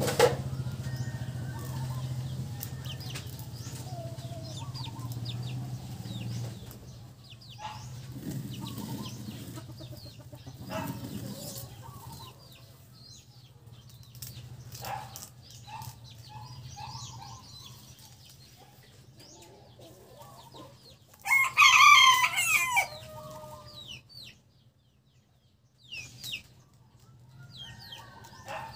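A rooster crows once, loudly, about three-quarters of the way through. Around it are faint clicks and short scrapes of a knife paring the stem of a sprouted coconut.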